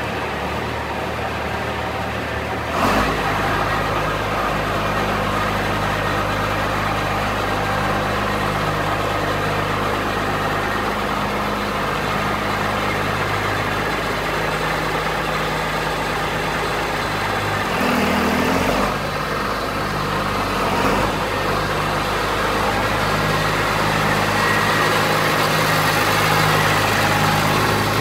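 John Deere 4250 tractor's six-cylinder turbocharged diesel engine running steadily. About three seconds in its engine speed steps up, and its note changes briefly near eighteen seconds.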